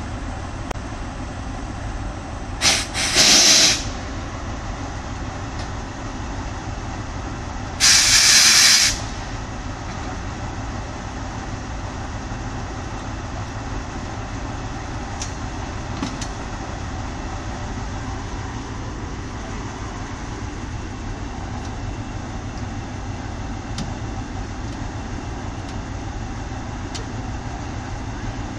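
Diesel passenger trains standing with their engines idling, a steady low rumble. Two loud hisses of released compressed air break in, about three seconds in and again about eight seconds in, each lasting around a second.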